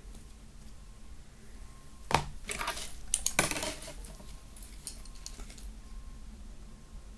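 Metal snap hook and fittings of a fabric lanyard clinking and jingling as it is picked up and handled on a wooden table: a sharp clink about two seconds in, then a brief cluster of jingles, with only quiet handling before and after.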